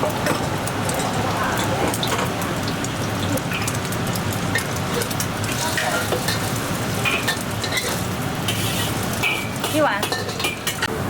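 Food sizzling steadily as it is stir-fried in a hot pan, with occasional clinks of a metal utensil against the pan.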